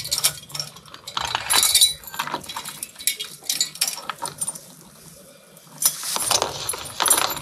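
Metal clinking and knocking as the hydraulic hose couplers and hitch hardware at the rear of a tractor are handled: clusters of sharp clinks in the first three seconds, a quieter stretch, then more about six seconds in.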